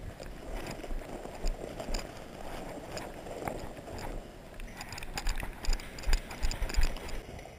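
Footsteps on pavement with the rattle and knock of carried gear, heard through a body-worn action camera, with low wind thumps on the microphone. The knocks grow louder and busier about five seconds in.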